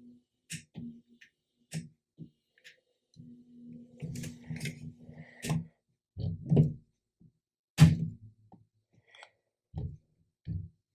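Dobot Magician robotic arm being moved and positioned by hand: a string of irregular clicks and knocks from its joints and casing, the sharpest about eight seconds in.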